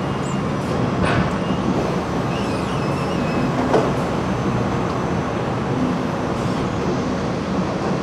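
Steady running noise of a wet bin dumper and flume line unloading apple bins: motors and conveyors humming, with water churning in the tank. A sharp knock comes about a second in and another just before four seconds, with a faint squeal between them.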